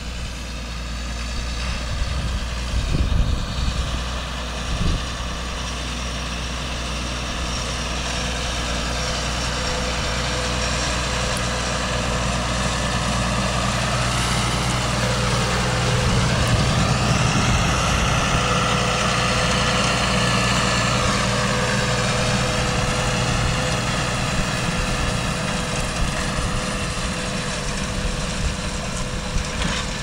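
Claas Arion 610 CIS tractor's six-cylinder diesel engine running steadily under load while pulling a plough, growing louder as it passes close by around the middle, then slowly easing off as it moves away.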